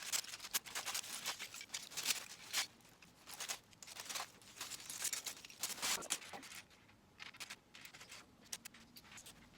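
Plastic Lego bricks being handled, a dense run of small clicks and rattles that thins out after about six and a half seconds.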